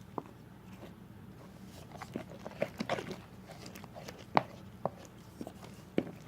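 Glue-and-borax slime being stirred and scraped around a bowl with a mixing tool: irregular sticky squelches and sharp clicks.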